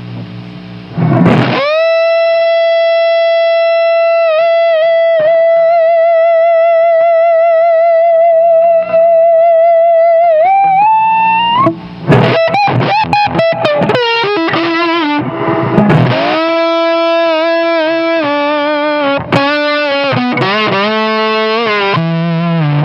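Slide electric guitar played through a Soul Tramp Wraith amplifier: a single note rings out about a second in and is held for about ten seconds with slide vibrato, then glides upward. After a brief break it turns into a busy run of slid notes and chords.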